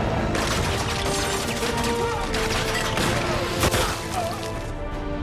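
Rapid automatic gunfire from a strafing aircraft with bullets tearing into the ground, starting about half a second in and stopping near the end, with one sharp crack about two-thirds of the way through. A film score plays underneath.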